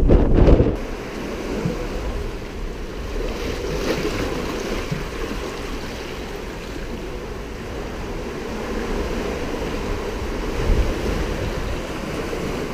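Ocean surf washing and churning through the rocks of a sea cave, a steady rushing wash of water. For about the first second, wind buffets the microphone with a low rumble.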